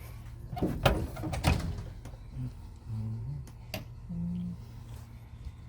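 Clacks and knocks of computer parts being handled, several in quick succession and one more a few seconds later, with a low hum of short held notes in between.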